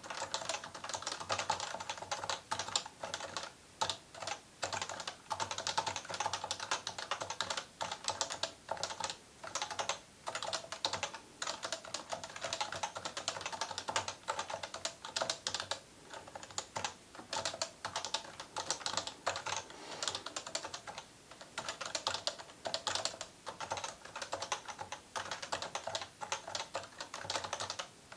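Fast, continuous typing on an electrostatic capacitive (Topre-style) keyboard, key strokes close together with short pauses every couple of seconds.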